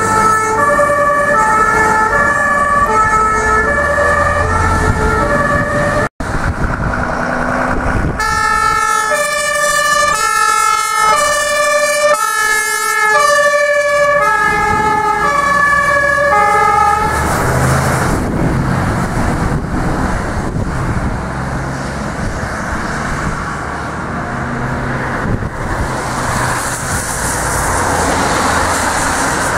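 German fire engines sounding their two-tone sirens (Martinshorn) as they drive past on a response: first a TLF 8/18 tanker, then, after a brief break, a turntable ladder truck. From about seventeen seconds in the sirens are gone and only road traffic noise and wind remain.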